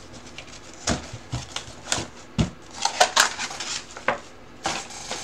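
Trading card packs and cardboard boxes being handled on a table: scattered light clicks, taps and short crinkles, with a quick cluster of sharper ones about three seconds in.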